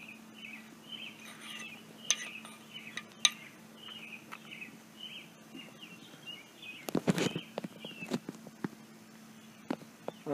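Metal rod clinking and scraping against the cast-iron cylinder of an engine block while prodding a burning rag. There are scattered single clinks, and a quick cluster of knocks about seven seconds in.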